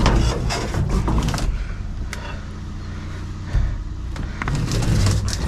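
Vehicle engine idling with a steady low hum, with several knocks and rattles of objects being handled near the start and again toward the end.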